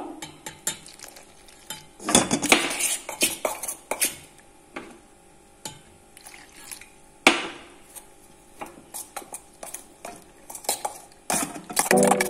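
A small metal fork stirring a dry flour mix in a stainless steel pot: irregular scraping and clinking of the tines against the pot, in short louder spells.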